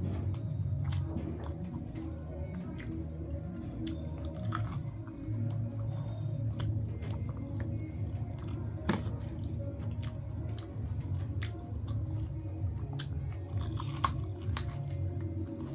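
Close-up chewing and eating: a person's mouth chewing food, with frequent wet smacks and small clicks and a couple of sharper clicks, about 9 and 14 seconds in.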